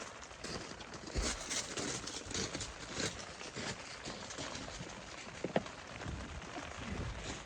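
Irregular light clicks and knocks, with one sharper knock about five and a half seconds in, under low gusts of strong wind buffeting the microphone.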